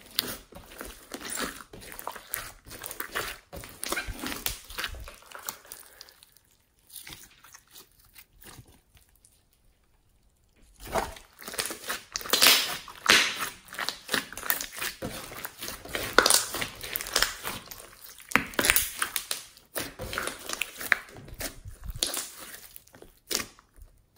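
Hands squeezing, kneading and poking a large mass of sticky slime studded with foam beads: irregular wet squishing, clicking and crackling. The handling goes nearly silent for a few seconds in the middle, then picks up again, louder and busier.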